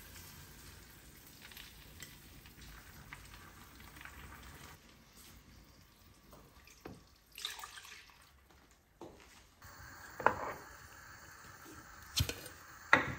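Quiet cooking sounds: a pan of tuna frying faintly in oil, a short splashy rush about halfway through, and a few sharp clinks of cookware near the end.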